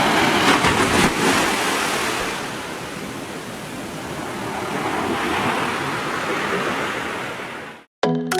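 Waves washing onto a beach: a steady rush of surf that eases off and swells again, then cuts off suddenly near the end.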